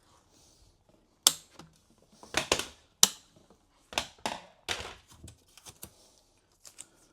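An irregular run of sharp knocks and clacks, as of hard objects being handled, sometimes several within a second, the loudest just over a second in and about three seconds in.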